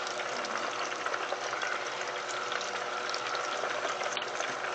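Cornish hen frying in 350-degree oil in a deep fryer: steady sizzling and bubbling with many fine crackles.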